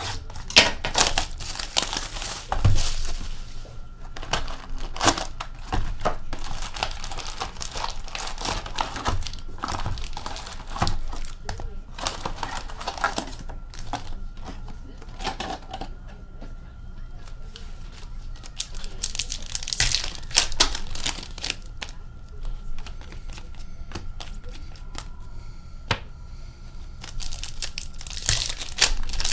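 Foil hockey card packs being torn open and handled: wrappers crinkling and ripping in irregular bursts, with cards and cardboard rustling and clicking as they are pulled out and stacked.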